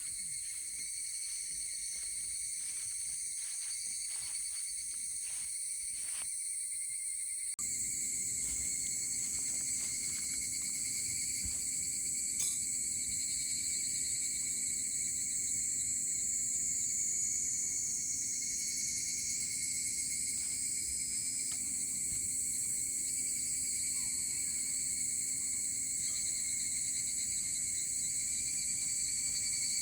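A steady, high-pitched chorus of insects chirping without a break. About a quarter of the way in, a low steady hum joins underneath.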